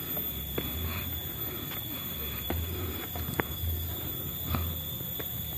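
Footsteps on a wet concrete path, soft thuds about once a second with light scuffing clicks. A steady high-pitched tone sounds throughout.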